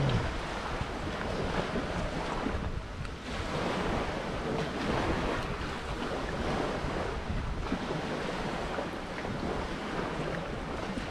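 Sea waves washing on a beach, a steady rushing that swells and eases every few seconds, with wind on the microphone.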